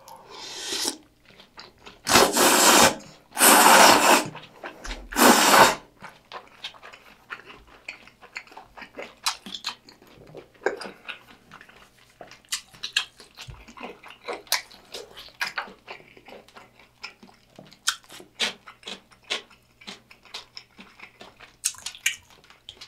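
A person slurping thick udon noodles from kimchi broth in four loud slurps in the first six seconds, then chewing with many small wet mouth clicks.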